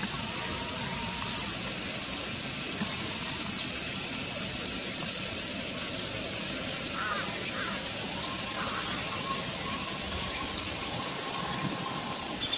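Steady, high-pitched droning of insects, unbroken and even in level.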